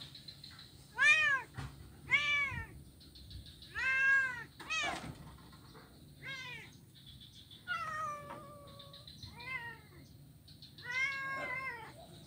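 Domestic cat meowing repeatedly, about eight meows a second or so apart, each rising then falling in pitch, with a few longer drawn-out ones later on.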